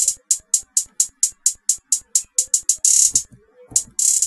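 A programmed trap hi-hat pattern playing back in FL Studio: a steady run of crisp hi-hat hits, about four a second. Rapid hi-hat rolls break it briefly at the start, about three seconds in and again near the end, with a few low thumps beneath.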